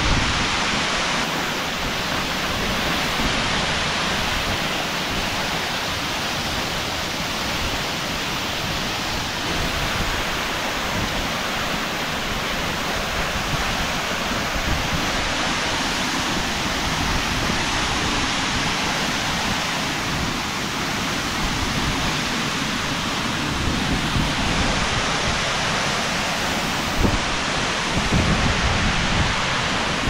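Waterfall and its fast whitewater rushing loud and steady, heard up close.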